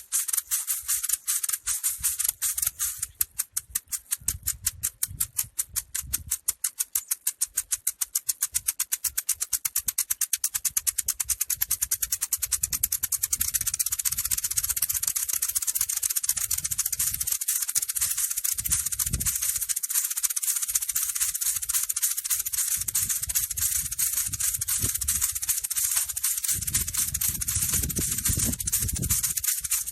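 Maracas shaken in quick, even strokes, a dry high-pitched rattle; the shakes speed up and blur into one continuous rattle about thirteen seconds in.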